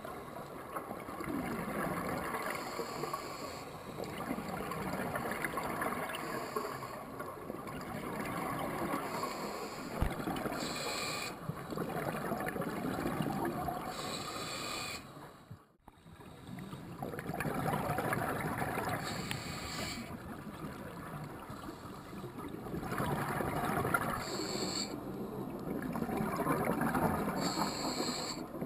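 Scuba diver breathing through a regulator underwater: a short hiss on each inhalation, then a longer burble of exhaled bubbles, repeating every few seconds, muffled by the camera's underwater housing. The sound drops out briefly about halfway through.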